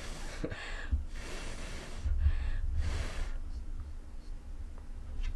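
A person blowing on a chip of hot buffalo chicken dip to cool it: several airy puffs of breath in the first three seconds, the last and longest the loudest, with a low rumble of breath on the microphone. After that only a few faint clicks.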